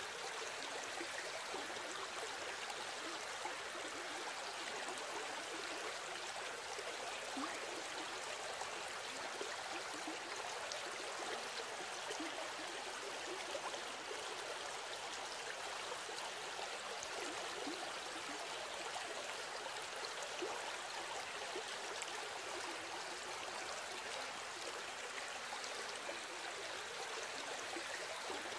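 Steady noise of running water, as of a stream, with no other sound on top.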